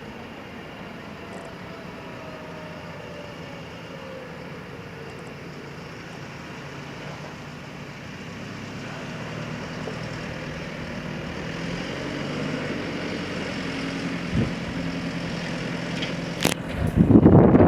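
Engine of a heavy construction machine running steadily, growing gradually louder through the second half. Wind buffets the microphone near the end.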